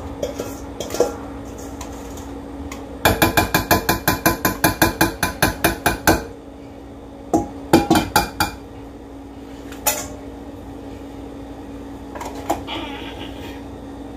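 Metal kitchen utensil rapidly tapping against a mixing bowl, about six ringing taps a second for three seconds, then a short cluster of taps and a single one later, over a steady low hum.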